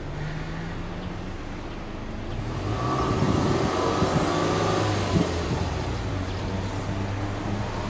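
Exhaust of a Subaru Legacy 2.0GT spec B's turbocharged EJ20 flat-four, heard from behind its twin tailpipes: idling, then revved with no load for about three seconds from a couple of seconds in, with a short sharp pop as the revs drop, then settling back to a steady idle.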